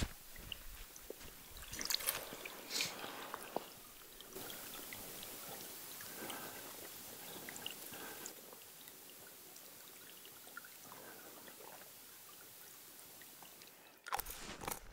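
A small stream under the snow trickling while a plastic water bottle is dipped into it and filled. A few sharp knocks of the bottle come about two to three seconds in.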